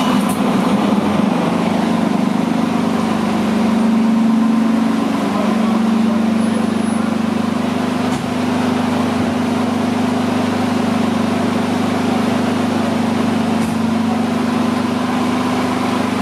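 A 2021 Seagrave Attacker fire engine's diesel engine idling with a steady, even hum.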